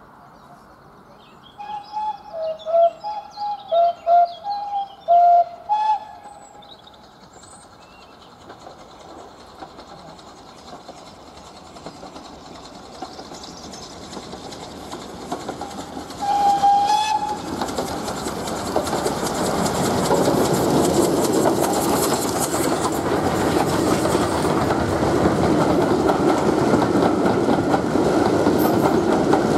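Steam train whistle: several short toots in the first few seconds, then one longer blast about halfway. After the blast, a steam-hauled passenger train approaches and runs past, its rumble and wheel clatter growing louder.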